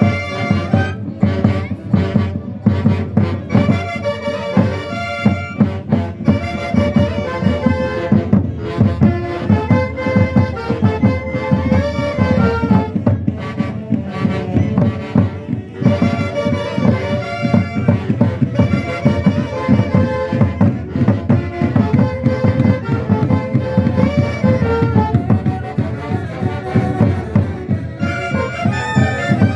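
Traditional Andean festival band playing live: wind instruments carry a continuous melody over a steady beat.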